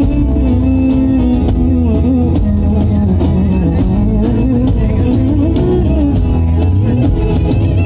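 A live band playing a folk-style Kabir song on acoustic guitar, electric bass and drum kit, with a steady drum beat under a wavering lead melody line.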